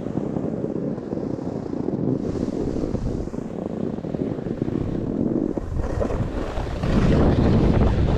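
Wind buffeting the camera microphone in a steady rough rush, getting louder about seven seconds in.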